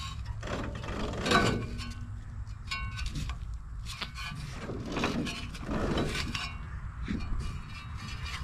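Ford 8N tractor's four-cylinder engine being turned over by hand at the fan, with a string of irregular scrapes and rubs as it rotates; the fan catches the radiator a little as it goes round.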